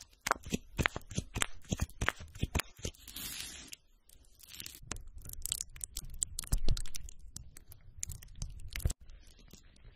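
Close, irregular crackles and crunches from a flat spatula pressing pink gel into a porous makeup cushion sponge, with a short hiss about three seconds in.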